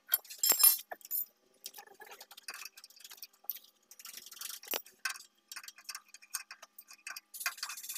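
Irregular metal clicks and clinks of an open-end wrench working the nuts on a Landini DT85 tractor's brake rod linkage, the loudest clink about half a second in.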